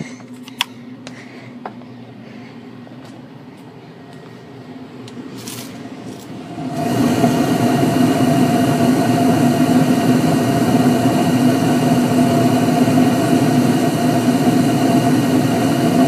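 York gas furnace running with its fan going: a steady hum with a rushing noise, which turns much louder about six and a half seconds in and then holds steady.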